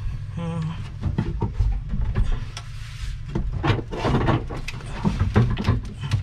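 Knocks and clatter of a Ryobi 18V cordless drill being handled and lined up with a driver bit fitted, with a short buzz under a second in.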